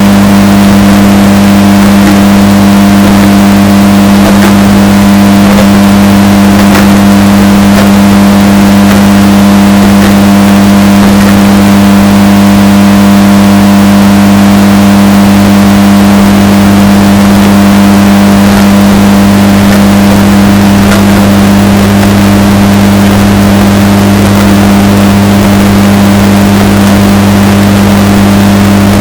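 Washing machine running with a steady, unbroken hum, heavily bass-boosted and distorted to the edge of clipping, with a few faint ticks over it.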